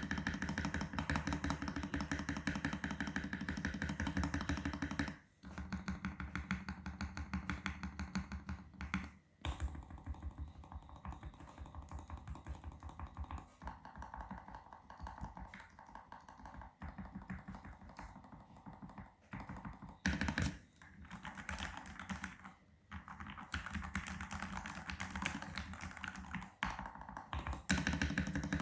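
Continuous fast typing on an FL-Esports CMK87 mechanical keyboard with lubed Gateron Pro Milky Yellow linear switches, FSA keycaps and a stock case with PCB foam, in dense runs of key clacks broken by a few short pauses.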